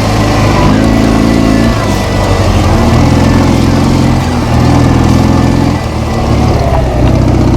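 Motorcycle engine running loud, its pitch stepping up and down several times as it is revved, with a brief drop about six seconds in.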